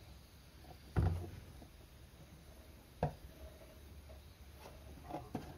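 Engine oil being poured from a plastic jug through a funnel: two dull thumps about two seconds apart, the first the louder, then a few light clicks near the end.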